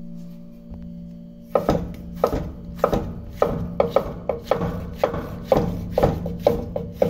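A large chef's knife slicing a tomato, each cut ending in a knock of the blade on the cutting board. The cuts come about two to three times a second, starting about a second and a half in, over a steady low hum.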